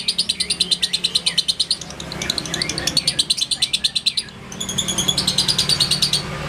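Fischer's lovebird chattering in fast runs of evenly repeated high chirps, about ten a second, broken by short pauses about two and four seconds in.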